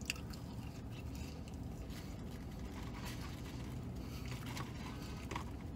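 Low steady hum inside a vehicle cabin, with faint rustling of a paper food bag and a few soft clicks.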